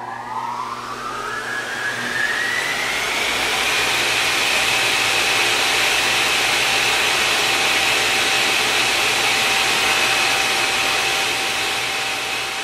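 A high whine climbing in pitch over the first three seconds or so, like a motor or turbine spinning up, then holding steady over a loud rushing noise. It fades near the end.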